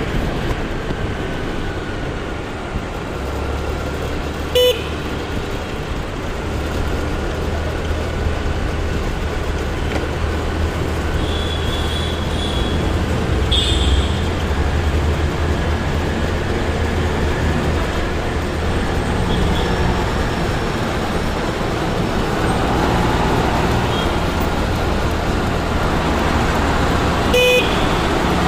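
Traffic heard while riding a two-wheeler: a steady engine and road hum, with horns tooting briefly around the middle. There is a short sharp blip about five seconds in and another near the end, as a city bus runs alongside.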